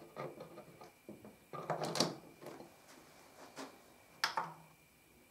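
A few scattered clicks and knocks of hands working at the front panel and chassis of an opened Pioneer AV receiver, the loudest cluster about two seconds in.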